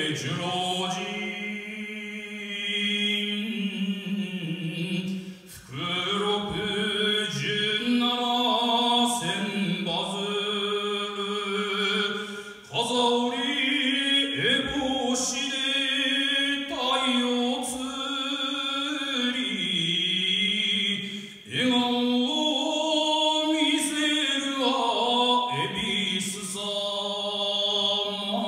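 Sumo jinku sung solo and unaccompanied by a man's voice: long drawn-out notes that bend and waver in pitch, with a few short pauses for breath.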